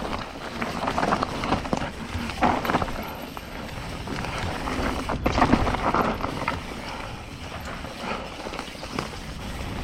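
Mountain bike riding a dirt singletrack trail: tyres and frame rattling and knocking irregularly over bumps, with wind rumble on the microphone and the rider breathing hard.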